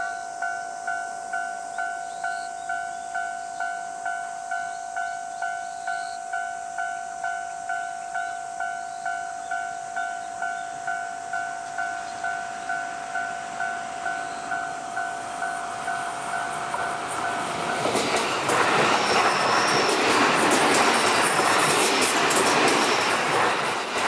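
A level-crossing warning bell dinging steadily, a little under twice a second. About three quarters of the way in, the JR 285-series Sunrise Izumo sleeper train passes close by, and the loud rumble and clatter of its wheels on the rails drowns the bell out.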